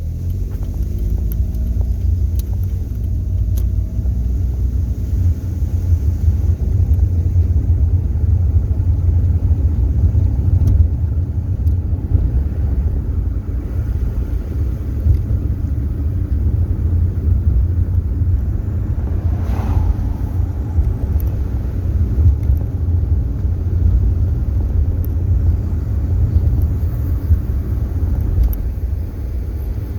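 Car on the move, heard from inside: a steady low engine and road rumble, with the engine note rising over the first few seconds as it gathers speed.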